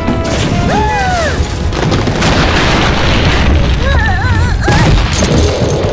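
Cartoon soundtrack with background music under a loud booming, crashing sound effect. High squeaky sounds slide up and down about a second in and again around four seconds in.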